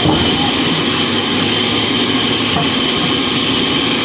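A woodworking power machine running steadily and loudly, with a constant high whine over a dense mechanical noise.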